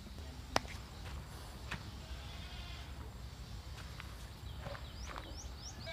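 Goats bleating faintly, with a single sharp click about half a second in and a few quick high rising chirps near the end.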